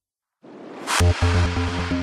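Electronic dance music starting up. After a brief silence a noise swell builds for about half a second, then a heavy bass beat comes in about a second in.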